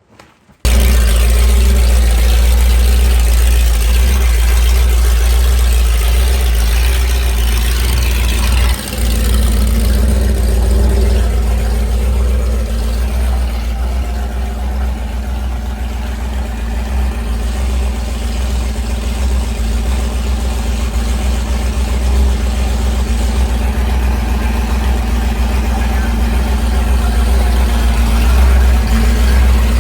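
A large engine idling steadily, with a loud, deep low rumble that cuts in suddenly at the start.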